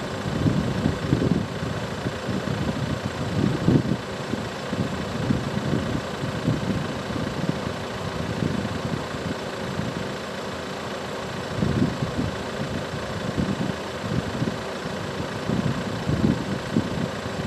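Renault Trafic van's diesel engine running, an uneven low rumble over a steady hiss.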